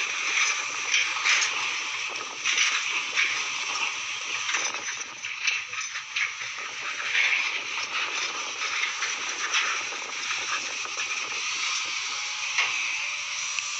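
Water splashing and sloshing: an irregular, hissy wash of moving water with frequent small surges.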